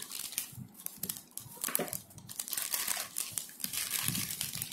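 Thin plastic courier mailer bag crinkling and rustling in irregular bursts as it is cut with scissors and pulled open by hand.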